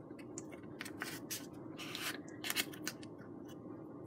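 Foam board being handled, bent and pressed together, its paper facing rubbing and creaking under the fingers in irregular short scratchy rustles, over a faint steady hum.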